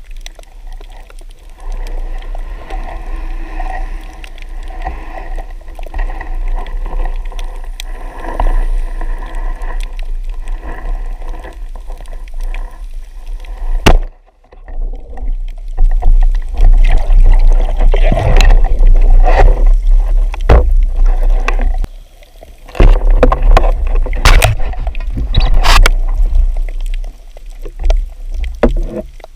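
Sea water rushing and gurgling around a camera in shallow water, with a heavy low rumble of water movement and a few sharp clicks and knocks. The sound cuts out abruptly about halfway through, then returns louder.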